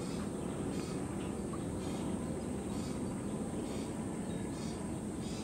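Outdoor ambience: a steady high insect drone over a low, even rumble, with short high chirps about once a second.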